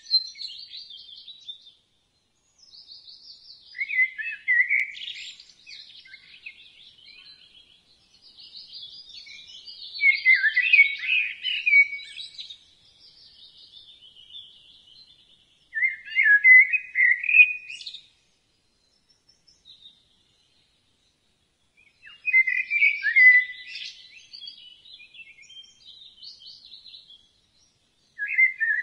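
Birdsong: a small bird sings about five chirping, warbling phrases of a few seconds each, with short pauses between them.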